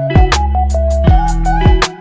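Intro music: a guitar-led track with a steady beat, stopping abruptly just before the end.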